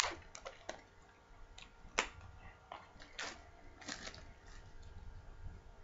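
Scattered faint clicks and crackles of small cardboard trading-card boxes and their cellophane wrapping being handled, with a sharper click about two seconds in.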